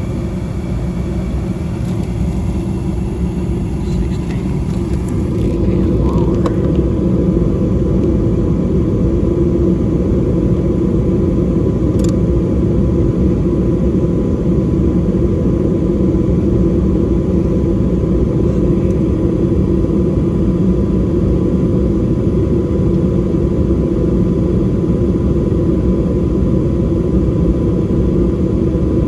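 Trane dual-fuel heating system running with a steady rumble of motor and air. The rumble grows louder about six seconds in as a faint steady whine comes in.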